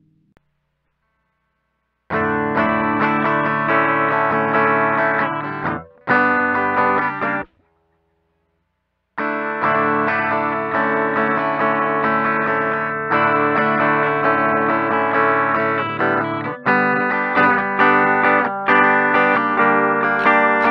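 Music: an electric guitar played through effects with some distortion, playing sustained chords. It starts about two seconds in, breaks off into silence for over a second in the middle, then returns with quicker repeated strums near the end.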